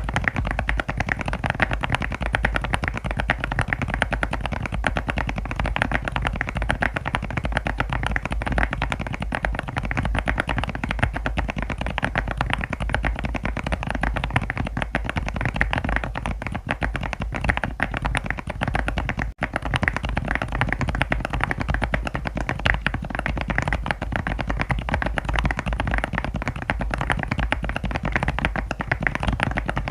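Fast, continuous typing on a mechanical keyboard with HMX tactile switches: a dense, steady patter of key clicks and bottom-outs. There is a brief break about two-thirds of the way through.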